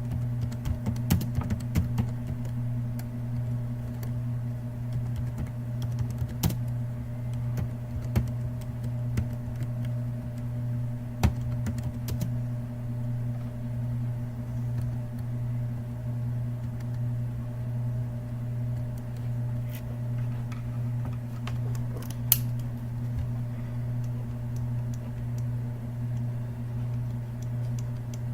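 Computer keyboard typing and clicking, a quick run of keystrokes in the first couple of seconds and then scattered single clicks, over a steady low hum.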